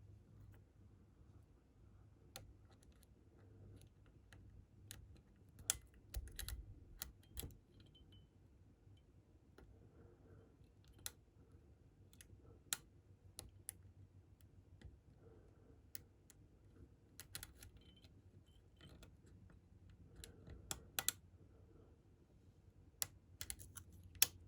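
Faint, scattered small metallic clicks and taps of lock picks and a tension tool working the pins of a Medico cam lock, irregular and a few a second at most, with a cluster of louder clicks a few seconds in and again near the end.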